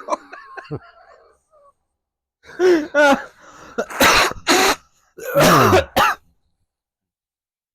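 A man's harsh, throaty growled bursts, three in a row, in the manner of a metalcore scream.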